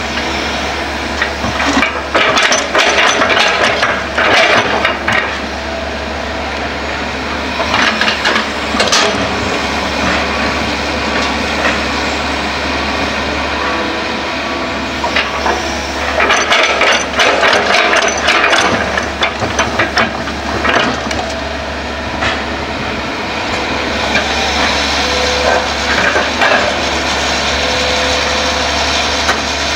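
Hitachi hydraulic crawler excavator running steadily under load, with repeated bursts of scraping and rattling as its bucket digs soil and rocks and dumps them into a dump truck's bed.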